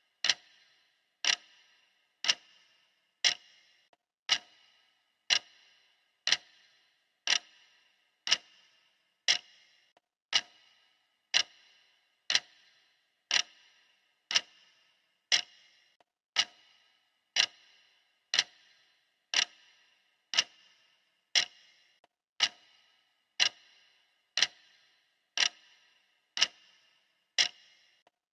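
Clock ticking steadily, one sharp tick about every second, each tick ringing briefly and dying away quickly.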